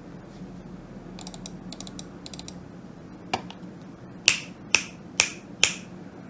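A few faint groups of light clicks, then four loud sharp clicks evenly spaced about half a second apart, over a low steady background hum.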